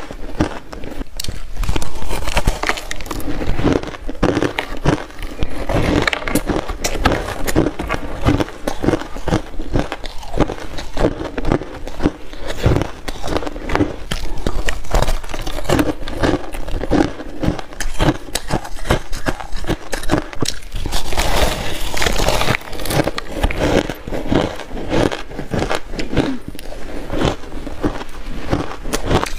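Close-miked biting and chewing of a block of shaved ice coated with buckwheat: dense, irregular crunching and crackling.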